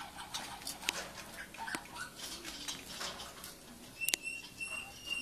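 Caged white-rumped shama giving scattered sharp clicks and soft short chirps. About four seconds in comes a thin high note repeated in quick short pulses.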